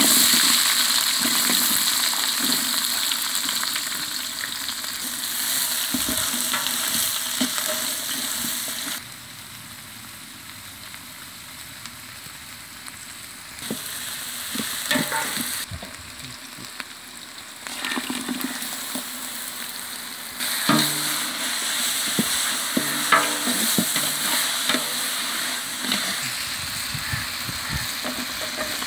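Sliced onions sizzling as they go into hot oil in a large aluminium pot, then frying while a metal ladle stirs them with scrapes against the pot. The sizzle is loudest at the start and drops away for a few seconds twice in the middle.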